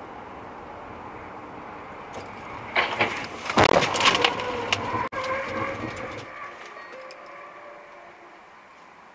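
Road noise inside a moving car, then about three seconds in a car crash: several loud bangs and crunches of a collision over about three seconds, followed by a whining tone that fades away.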